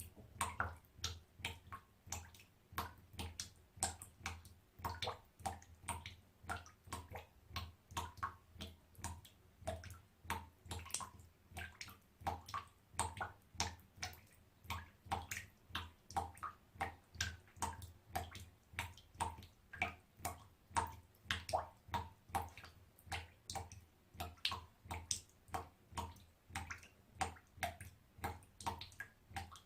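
Small water droplets dripping into a bathtub, a steady run of short plinking drips at about three a second.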